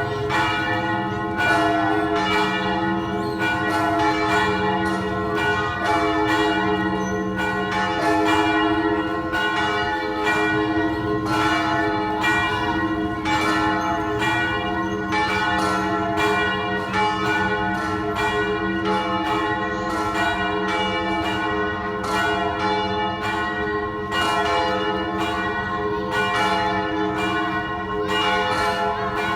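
Several church bells rung together without pause, struck in quick succession so their tones ring on and overlap.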